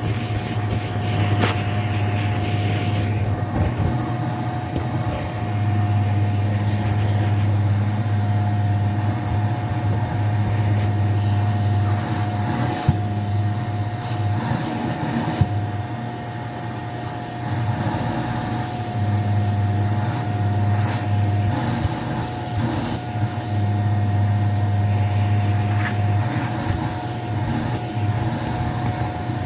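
Vacuum cleaner running on shag carpet: a steady motor drone with a constant whine. Its low hum strengthens and eases in stretches of a few seconds as the cleaner is worked across the pile, with a few sharp clicks.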